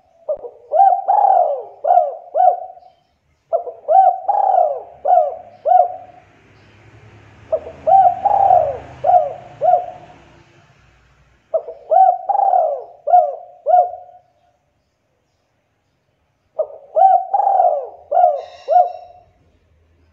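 Spotted dove (tekukur) cooing: five repeated phrases of several short, rising-and-falling coo notes each, separated by short pauses.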